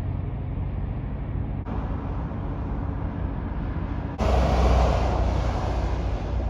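Steady low rumble of a car driving, with road noise heard from the cabin. It changes abruptly twice, and from about four seconds in it is louder and brighter.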